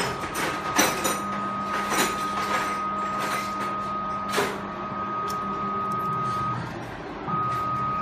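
Automatic rotary-blade cable stripping machine running as it strips the insulation off a thick power cable: a steady high whine over a low hum, broken by several sharp knocks, with the whine cutting out briefly near the end and starting again.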